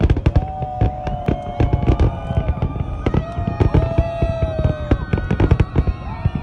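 Fireworks display: a dense, rapid run of booming bangs and crackling bursts, with a loud bang right at the start. Twice, a long held tone that falls slightly in pitch sounds over the bangs.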